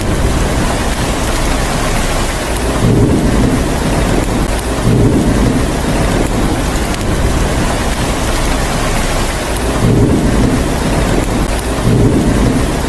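Steady heavy rain hissing, with low thunder rumbles swelling up about four times.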